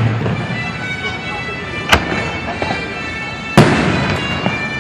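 Aerial fireworks bursting overhead: two sharp bangs, about two seconds in and a second and a half later. The second is louder and trails off in an echo.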